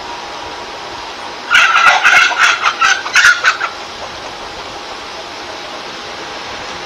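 Chickens squabbling: a rapid, loud run of squawking calls that starts about a second and a half in and lasts about two seconds.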